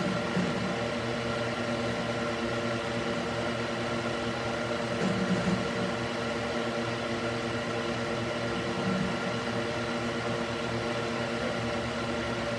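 Cooling fan mounted in a wooden box running steadily: an even whir over a constant hum of several steady tones.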